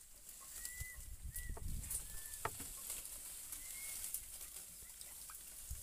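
A bird repeats a short, arched, whistle-like note several times over a steady high insect hiss. Soft knocks and a low rumble of water and handling come about two seconds in as a fish-trap line is hauled up beside a wooden boat.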